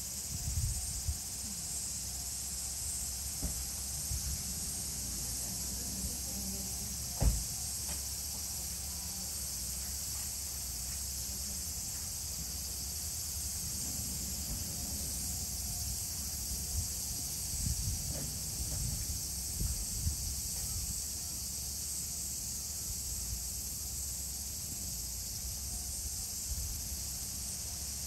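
Steady high-pitched insect chorus, with occasional low rumbles and one sharp knock about seven seconds in.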